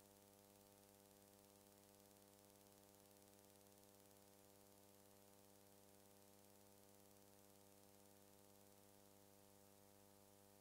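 Near silence: a faint, unchanging electrical hum with hiss.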